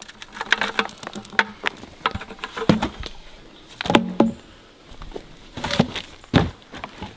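Logs being handled and set down on the forest floor: scattered knocks of wood on wood, the loudest about three and four seconds in, with crunching of twigs and leaf litter between them.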